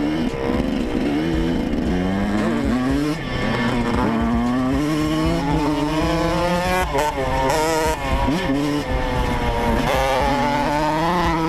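2012 Yamaha YZ125's single-cylinder two-stroke engine revving up and dropping back several times. It runs cleanly after its carburettor was adjusted.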